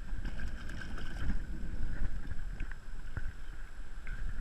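Strong wind buffeting the microphone over sloshing shallow water, with a few small sharp splashes.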